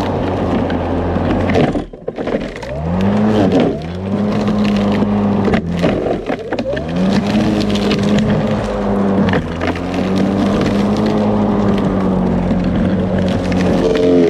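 Ryobi 40V brushless electric lawn mower's motor and blade running under heavy load: the speed drops and whines back up a few times as it bogs in thick growth, then holds a steady hum.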